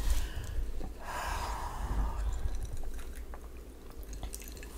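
A person sipping a drink from a small cup, with soft mouth sounds.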